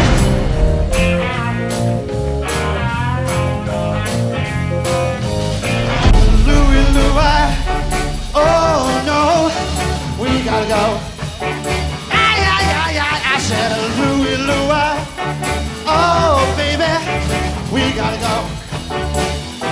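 A live soul and rhythm-and-blues band playing. It opens with a guitar-led passage, then about six seconds in comes a louder section with a wavering lead melody over bass and drums.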